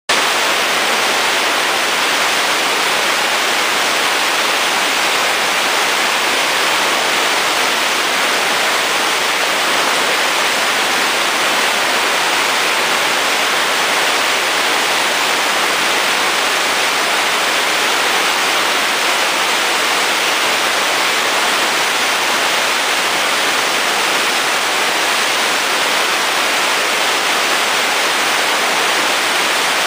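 Steady, even rushing noise with no breaks or separate sounds.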